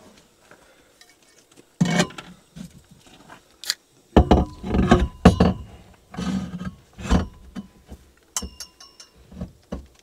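Knocks, clunks and metallic clinks of a camper van's convertible dinette table being put together: a metal table leg fitted and a wooden tabletop set down and pushed into place. The last few knocks ring briefly like metal.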